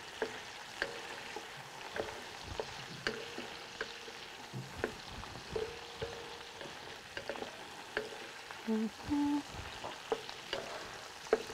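Diced Iberian pancetta and red pepper sizzling in olive oil in a large black pan. A spoon stirs them, knocking and scraping against the pan about once a second.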